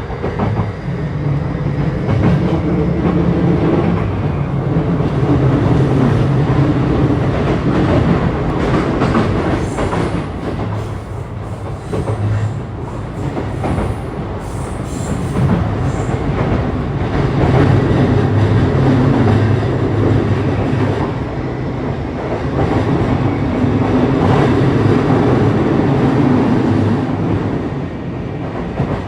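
JR East E235-1000 series electric train running, heard from inside the carriage: a continuous hum from the train's drive and the rumble of wheels on rails. The sound swells and eases a few times.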